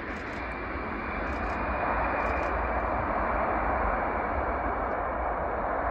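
Ryanair Boeing 737 MAX 8-200's jet engines running as it lands, a steady rushing roar that grows louder about two seconds in and holds.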